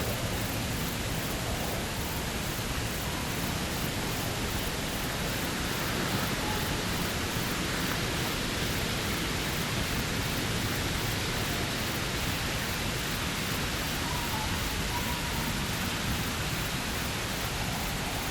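Steady, even rushing noise with a few faint short chirps scattered through it.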